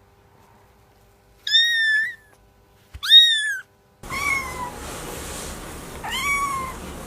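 A kitten mewing four times, short high-pitched mews each rising then falling. The last two sound over a louder background hiss.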